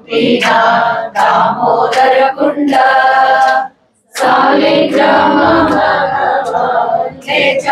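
Several voices singing a Hindu devotional song together, in long held notes. The singing breaks off briefly about four seconds in.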